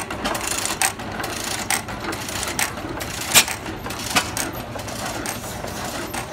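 Antique stationary gas engines running, the nearest one running smoothly on propane. A sharp knock comes about once a second over a steady mechanical clatter and low hum.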